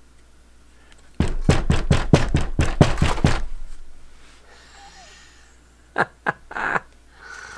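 Rusted, water-damaged tractor starter motor knocked repeatedly against a wooden workbench to shake loose rust and corrosion from inside its housing: a quick run of about a dozen sharp knocks with heavy thuds starting about a second in, followed by a few lighter taps near the end.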